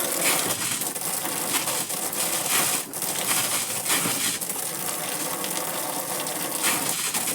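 River water gushing from a pipe and splashing down in a steady, noisy stream.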